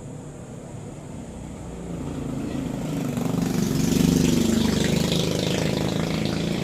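A motor running steadily, growing louder about two seconds in, with a hiss rising over it from about three and a half seconds.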